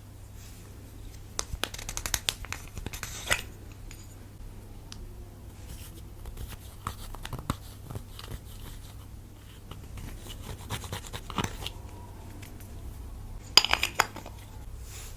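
Clear slime being squeezed and stretched by hand, giving sticky crackling clicks and pops in clusters, the loudest burst of pops near the end.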